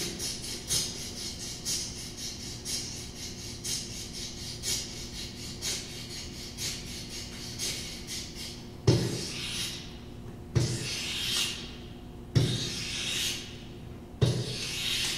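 Everyday objects played as percussion on an amplified tabletop: quick light taps and scrapes at first, then from about nine seconds in a sharp knock every couple of seconds, each followed by a drawn-out scraping rub. A low steady hum lies underneath.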